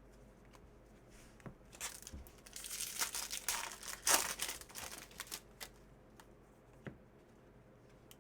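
A trading-card pack wrapper being torn open and crinkled in the hands: a run of crackling and tearing that builds for a few seconds and is loudest about four seconds in, with a few sharp ticks afterwards.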